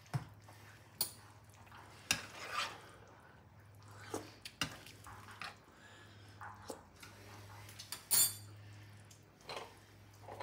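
Wooden spoon stirring a simmering sauce in a skillet, with scattered knocks and clinks of cookware; the loudest, sharpest clink comes about eight seconds in. A steady low hum runs underneath.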